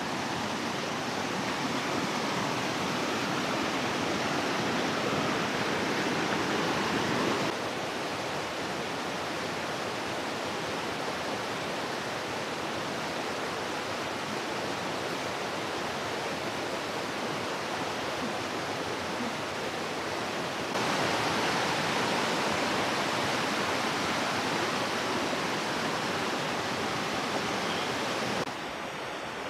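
Rushing water: a steady, dense hiss-like rush with no rhythm. It changes level abruptly about a quarter of the way in, again about two-thirds in, and drops near the end.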